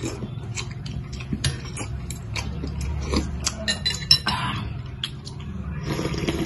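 Glass noodles (sotanghon) and chicken soup being slurped, with chopsticks and a spoon clicking again and again against the bowl; near the end, a longer slurp as broth is drunk straight from the bowl.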